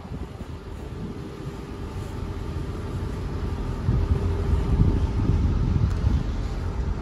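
Wooden motorboat's engine running steadily, with wind buffeting the microphone; the engine and wind noise get louder about four seconds in.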